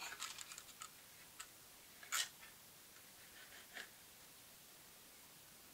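Faint clicks and taps from handling an aluminium amplifier front panel fitted with meters and switches as it is lifted and turned over: a quick run of small ticks at the start, a louder click about two seconds in, and a few more near the end.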